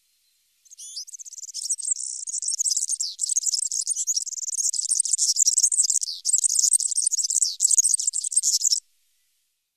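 European serin singing: a fast, very high-pitched jingling twitter, insect-like, that starts about a second in and runs for about eight seconds before stopping abruptly.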